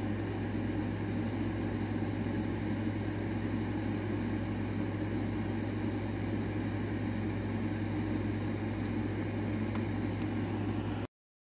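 A steady low machine hum with a strong fixed low tone and several steady higher tones, unchanging throughout and cutting off abruptly near the end.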